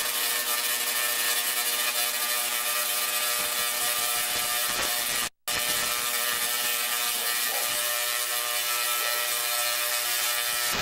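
High-voltage electric arcs discharging onto a performer's raised hands, a loud steady crackling buzz of rapid sparks. It breaks off for a moment about five seconds in.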